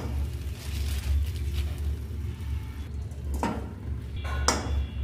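Lumps of jaggery dropped by hand into an iron kadai, landing with sharp knocks about three and a half and four and a half seconds in, over a steady low rumble.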